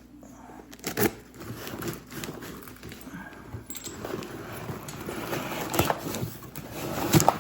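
Packing material crinkling and rustling as a box of rocks is unpacked, with a sharp click about a second in and another near the end.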